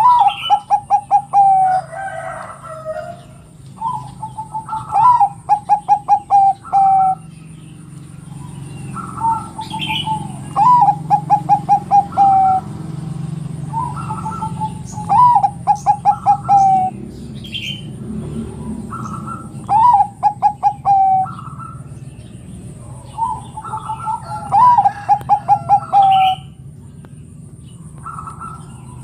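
Zebra dove (perkutut, Bangkok type) singing its cooing song. It gives repeated phrases of quick stuttering coos, each phrase a run of rapid pulses, about every four to five seconds.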